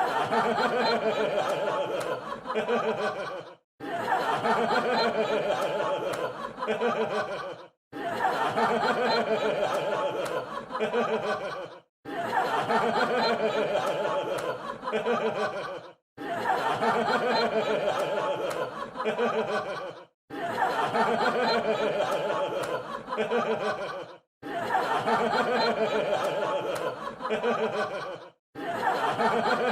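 A crowd laughing, as a laugh-track clip of about four seconds that repeats over and over. Each repeat is broken off by a brief moment of silence.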